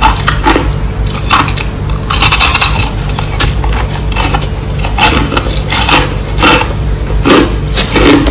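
Close-up crunching of clear crushed ice being chewed: irregular, crisp crunches, several a second, over a steady low hum.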